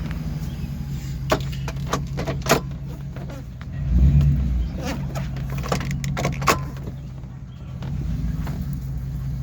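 Gasoline truck engine running rough with a bad misfire, which the owner puts down to failing ignition coils. The low engine note swells briefly about four seconds in, and sharp clicks and taps are scattered over it.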